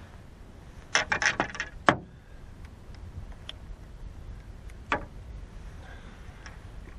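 A quick run of sharp clicks and knocks lasting about a second, starting about a second in, then a single knock near five seconds: rod, reel and line being handled as a small perch is landed over the side of a boat.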